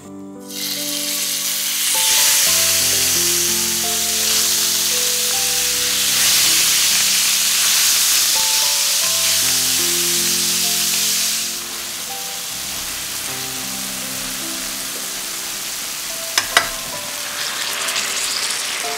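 Shredded pork sizzling in hot oil in a steel frying pan as it is stir-fried with a spatula. The sizzling starts about half a second in and drops to a quieter sizzle about two thirds of the way through, with two sharp clicks a few seconds later.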